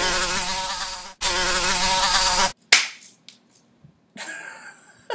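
A flying insect buzzing loudly right at the microphone, a wavering drone that breaks off briefly about a second in and then stops after about two and a half seconds. A single sharp click follows shortly after.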